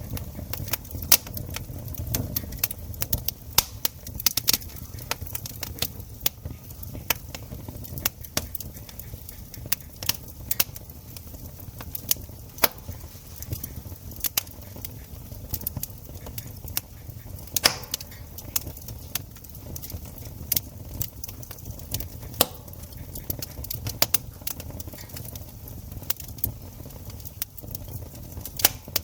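Campfire crackling: irregular sharp pops and snaps, several a second, over a low steady rumble of the flames.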